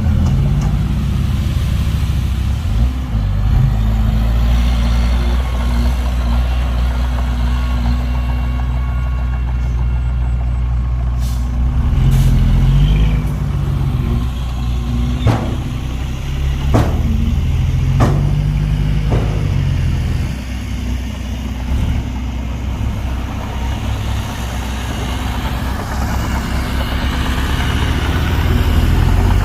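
Heavy diesel engines of a dump truck and bulldozer running under load, a steady low drone that rises briefly now and then, with about six sharp metallic clanks near the middle.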